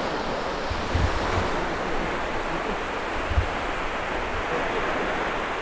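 Surf washing onto a sandy beach, a steady rushing noise, with wind buffeting the microphone a couple of times.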